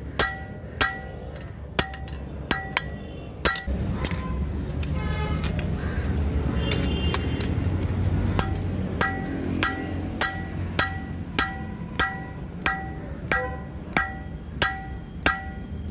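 Hand hammer striking red-hot leaf-spring steel on an anvil at about one and a half blows a second, each blow ringing. The blows pause for a few seconds in the middle, where there is a low rumble, and start again at the same pace.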